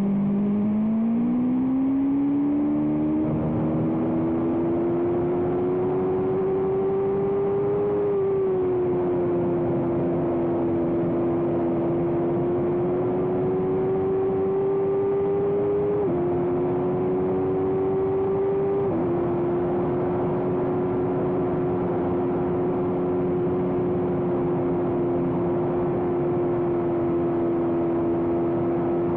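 Race motorcycle engine running hard under load, its pitch climbing slowly through the gears with sudden small drops around 8, 16 and 19 seconds in, then holding steady.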